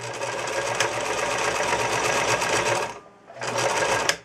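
Electric sewing machine stitching through cotton pillowcase fabric: one steady run of about three seconds, a brief stop, then a second, shorter run of under a second, as it stitches back and forth across the drawstring casing to tack it.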